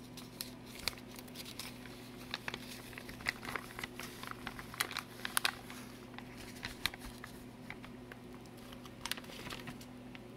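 Metallized anti-static shielding bag crinkling as it is handled and opened, a run of sharp, irregular crackles that are thickest in the first half and thin out toward the end.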